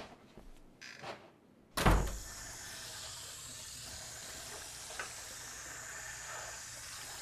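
A loud thud about two seconds in, then a tap running steadily into a sink.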